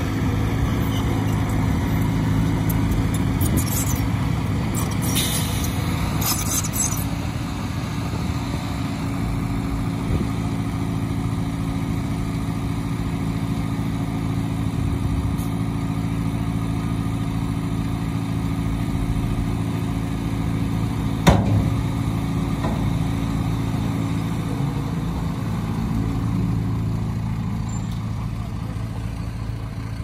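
Diesel engines of a dump truck and a crawler bulldozer running steadily while the truck tips its bed and dumps a load of soil. A few short hisses come in the first several seconds, and a single sharp clang about two-thirds of the way through.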